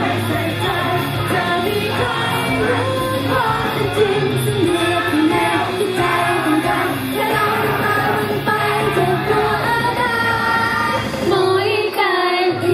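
Idol pop song with female voices singing over the backing track, the whole song played at double speed. The bass drops out about eleven seconds in.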